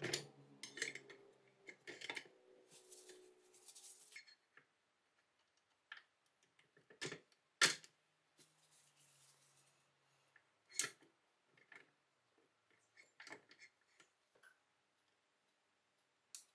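Sparse metallic clicks and knocks as the restored 1865 Starrett meat chopper's cast-iron parts are handled, the sharpest about seven and a half seconds in. A music track fades out during the first two seconds.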